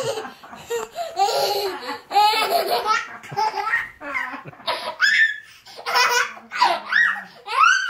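Young child laughing hard in repeated bursts of high, squealing belly laughs while being wrestled and held.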